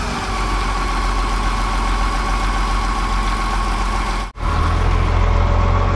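Caterpillar D7F bulldozer's six-cylinder diesel engine idling steadily. The sound drops out for an instant about four seconds in, then the engine carries on with a heavier low hum.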